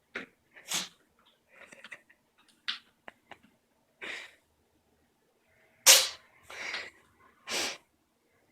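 A domestic cat with a cold sneezing over and over: about seven short, sharp sneezes with smaller snuffles between them, the loudest about six seconds in.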